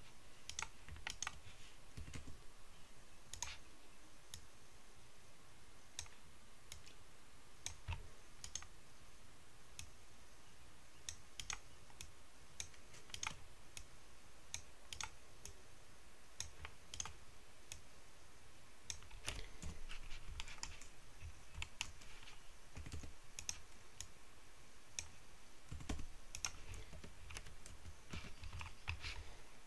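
Faint, irregular clicking and tapping of a computer keyboard and mouse as someone works a 3D modelling program. A few soft low thumps are mixed in.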